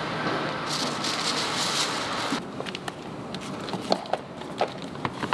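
Steady factory machine noise with a hiss, cut off about two and a half seconds in. After it come soft knocks and clicks as gloved hands handle and stack moulded silicone containers on a steel table.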